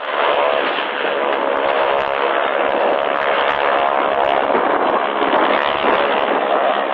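Aircraft piston engine running steadily, a loud continuous drone with an even level throughout.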